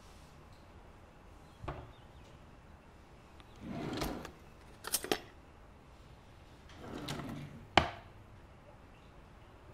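Scattered indoor handling sounds, like drawers or cupboard doors: a soft knock, a rustling swell, a couple of quick clicks, another rustle, then a sharp knock near the end, the loudest.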